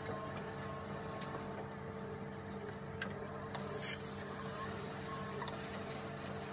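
A steam iron gives a short hiss of steam about four seconds in, with a click a second before it. A steady machine hum runs underneath.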